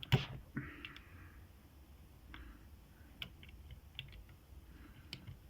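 Lock-picking tools working in a 5-pin Syneco 40 mm padlock: light metal clicks and scrapes as a pick is worked into the keyway, with one sharp click just after the start and a brief scrape under a second in.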